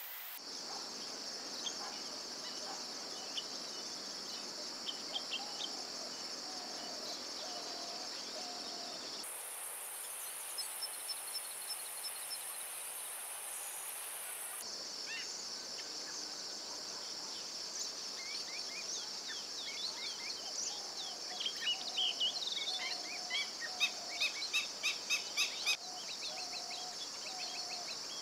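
Steady high-pitched insect drone with small birds chirping over it, and a run of louder, sharp bird calls in the last third. In the middle the drone briefly shifts to a higher pitch.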